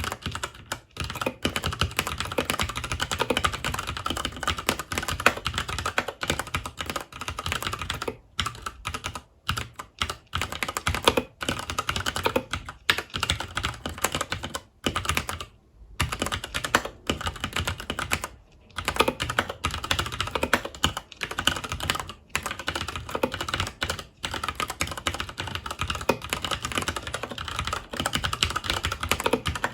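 Typing on a FILCO Majestouch 2 mechanical keyboard with Cherry MX Brown switches: a fast, continuous clatter of keystrokes, broken by a few short pauses.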